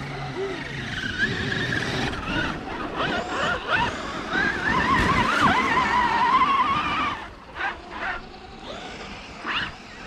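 Electric motor and drivetrain of a Traxxas RC monster truck whining as it is driven through snow, the pitch rising and falling with the throttle. After about seven seconds it drops back to a few short throttle blips.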